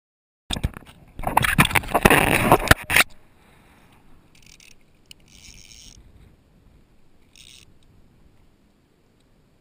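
Handling noise on an action camera's housing: a hand grips and adjusts the camera, making loud scrapes and knocks for about two and a half seconds. A few short, faint hissing bursts follow.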